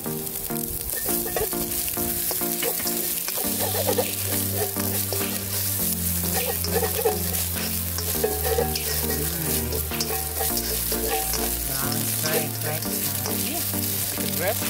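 Chopped garlic, shallots and red chili sizzling in hot oil in a wok while a slotted spatula stirs and scrapes them around the pan. Background music with low held notes that change every second or two runs underneath.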